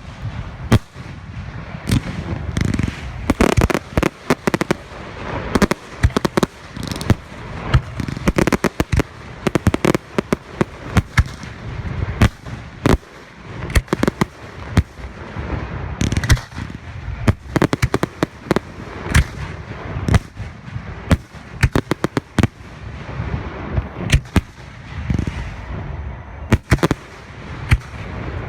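Fireworks display going off: a dense, continuous run of sharp bursts and booms, several a second, with crackling between them.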